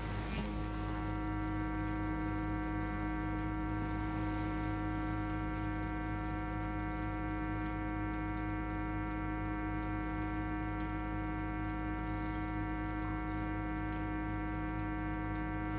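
Electric vibrating therapy device running, a steady mains-type hum with many even overtones and a faint regular pulse.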